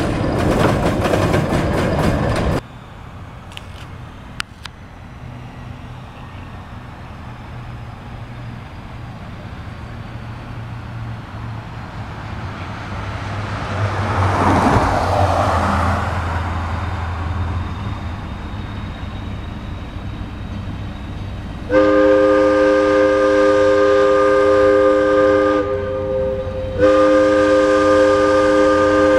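A locomotive approaches with its engine rumbling and grows louder, then sounds a multi-note air-horn chord. There is one long blast of about four seconds, and a second long blast begins near the end. Before this, a loud rushing noise cuts off abruptly about two and a half seconds in.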